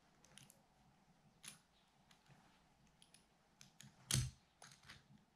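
Faint clicks and taps of small metal screws and a rail mount being handled on a night-vision unit, with one louder knock about four seconds in.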